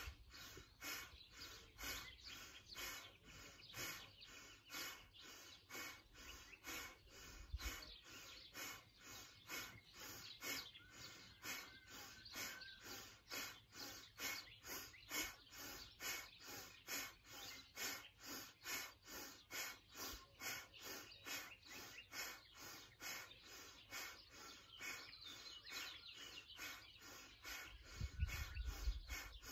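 Kundalini breath of fire: rapid, rhythmic, forceful exhales pumped through the nose by drawing the navel in, about two to three a second. It is faint and steady, with a low rumble near the end.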